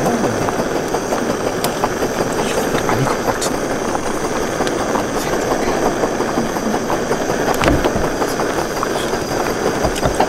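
Stainless hot pot of shabu-shabu broth boiling hard, a steady bubbling with small pops.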